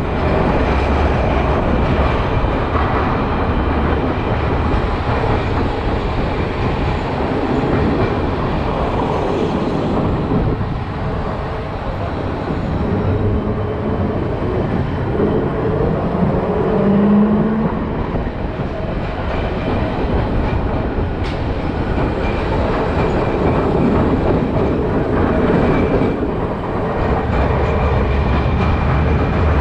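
Onboard running noise of a vintage Milan Line 1 tram (a 1928 Class 1500 car) with a wooden body, its wheels rolling over the rails in a steady rumble. A low motor hum sits under it at the start and again near the end. A brief low whine comes a little past halfway, and a single sharp click follows a few seconds later.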